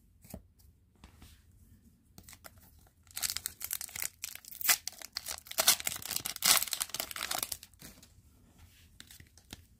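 A foil hockey card pack wrapper being torn open and crinkled by hand, a few seconds of rapid crackling tearing in the middle after some light handling.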